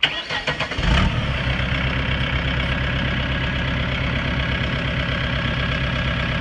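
Mahindra 2538 compact tractor's three-cylinder diesel engine cranked by the starter for under a second, catching about a second in and settling into a steady idle.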